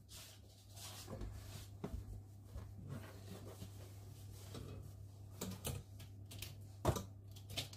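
Faint clicks and light knocks of a hot metal loaf tin being handled with a tea towel over a wire cooling rack, with a sharper knock about seven seconds in, over a low steady hum.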